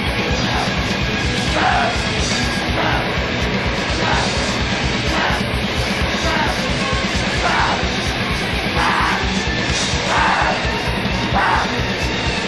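Live hardcore punk played together with harsh noise: fast, dense drumming and distorted instruments under a steady wall of noise, with shouted vocals breaking through in short yells about once a second.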